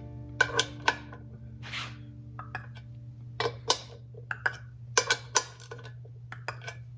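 Hand ratchet wrench tightening thermostat housing bolts: irregular metallic clicks and clinks of the ratchet and socket, often two or three in quick succession.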